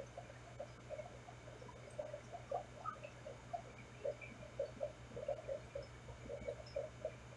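Aquarium heard underwater: a steady low hum with irregular short bubbling blips, several a second.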